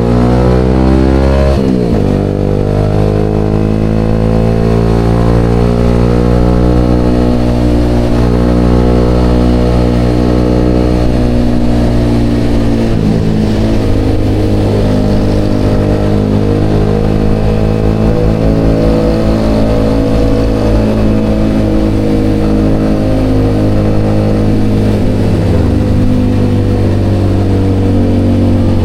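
Yamaha XSR motorcycle engine running through an aftermarket Vmax canister exhaust, its revs easing down over the first two seconds and then holding fairly steady.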